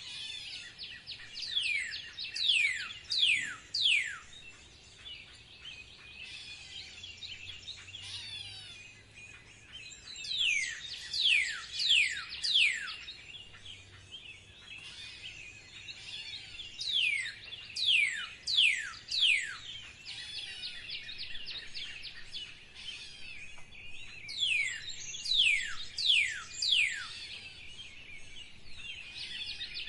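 Birdsong: one bird repeats a phrase of five or six clear whistles, each sliding sharply down in pitch, four times about seven seconds apart. Between phrases, other birds keep up a steady high chirping.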